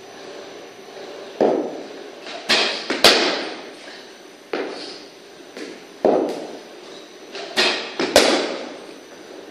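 Cricket ball pitching and being struck by a cricket bat, two deliveries about five seconds apart. Each brings a duller thud and then two sharp knocks about half a second apart, with the loudest knock about three seconds in and again just after eight seconds. The knocks echo off the enclosing walls.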